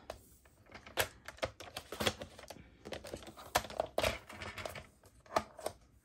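Irregular light clicks and taps of fingers and a cardstock strip against a plastic paper trimmer as the strip is repositioned for a cut.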